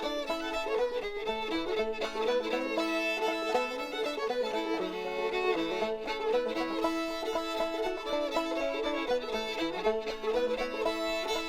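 Background music: an upbeat fiddle tune with a bluegrass feel.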